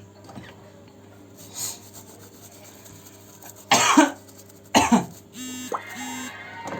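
A person coughs twice, sharply and briefly, about four and five seconds in.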